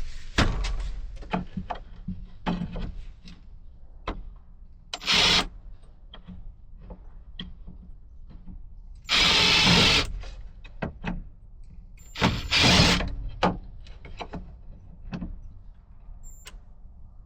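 A power drill driving screws in three short bursts, the longest lasting about a second. Clicks and knocks from handling the wood and tools come in between.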